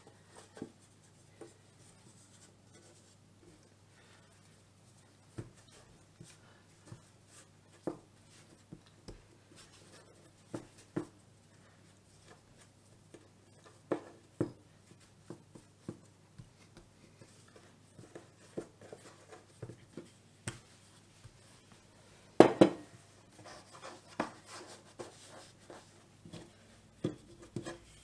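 Hands and a wooden rolling pin working shortcrust dough on a floured worktop: scattered soft taps, pats and knocks, with one louder thump about two-thirds of the way through.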